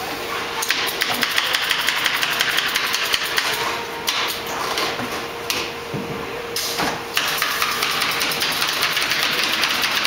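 Canvas-stretching work in a production shop: a rapid run of sharp clicks, several a second, over a steady machine hum. The clicks break off briefly about four seconds in and again a little past six seconds, then resume.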